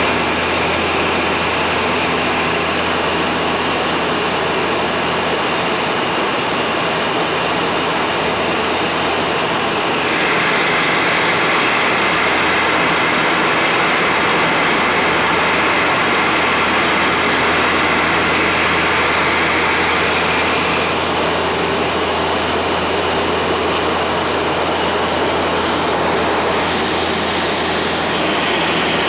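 Steady cabin drone of a de Havilland Canada DHC-6 Twin Otter in flight, from its two Pratt & Whitney PT6A turboprop engines and propellers: a constant low hum under a loud rushing noise. It grows a little louder and brighter for about ten seconds in the middle.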